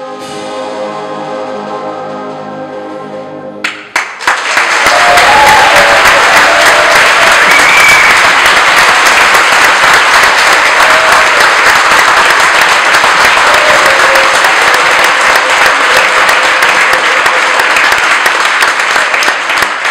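A brass band holds its final chord, which stops about four seconds in; then an audience breaks into applause, clapping steadily for the rest.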